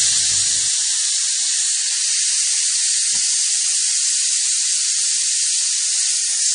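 Pressure cooker whistle venting steam on a high flame: a loud, steady hiss as built-up pressure lifts the weight.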